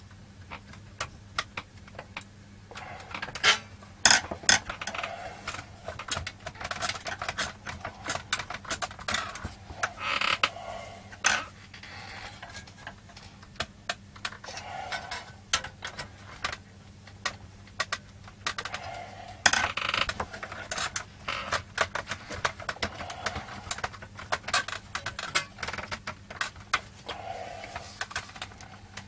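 Irregular clicks, knocks and scrapes of a CRT monitor's circuit board and metal shielding being handled and pried at, a part stuck down with sealant.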